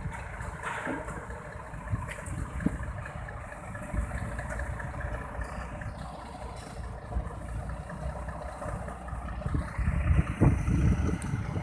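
Scania P380 truck engine running at low speed as it pulls a heavy multi-axle trailer, a low uneven rumble that grows louder near the end as the truck comes closer.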